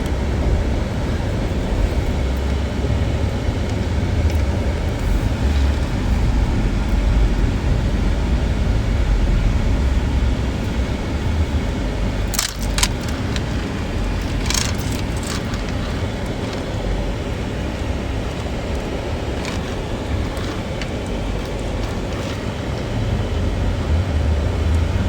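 A car driving on snowy roads: a steady low rumble of engine and road noise, with a few short rattling clicks about halfway through.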